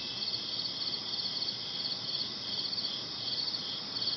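Crickets chirping in a steady, high-pitched pulsing chorus, played as a night-time ambience sound effect.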